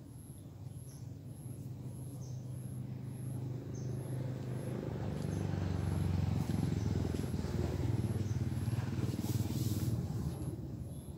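A motor engine passing: a low, steady hum builds to its loudest about two-thirds of the way through, then fades near the end. A faint high-pitched chirp repeats about twice a second throughout.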